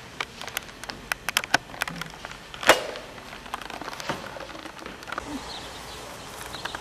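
A run of irregular sharp clicks and knocks, several a second, with one louder knock about two and a half seconds in, thinning out after about four seconds.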